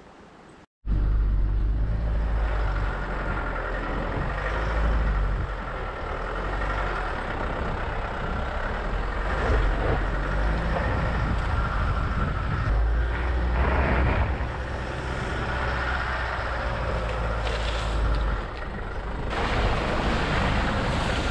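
Ford Ranger ute driving along a dirt bush track, picked up by a camera mounted on the outside of the vehicle: a steady low rumble of engine, tyres on gravel and wind. It comes in abruptly after a moment of silence near the start.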